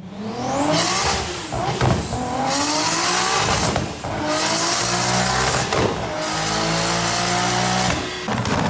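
Engine of a VR6-swapped Volkswagen Golf making over 850 horsepower, accelerating hard. The note climbs through about four gears, dipping briefly at each shift, with a high whistle rising alongside the engine, and it falls off near the end.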